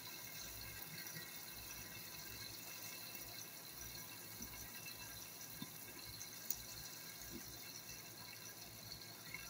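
Bacon sizzling faintly in a covered electric skillet, a steady hiss with a few faint ticks.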